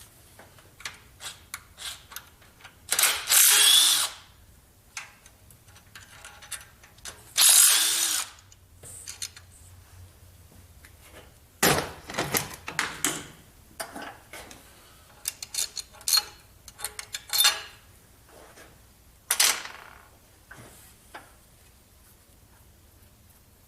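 A power tool such as a drill or driver runs in two bursts of about a second, then in several shorter bursts, among many sharp clicks and clanks of tools and metal parts.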